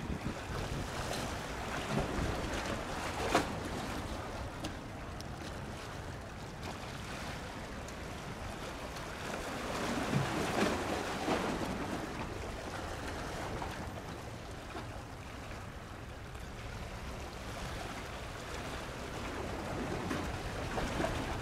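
Steady wind and wave noise at the water's edge, with a sharp click about three seconds in. No rotor sound stands out.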